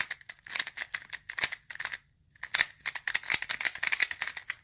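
A plastic speedcube being turned rapidly by hand, a fast run of clicking and clacking layer turns with a short pause about two seconds in; the cube's pieces have no lubricant on them.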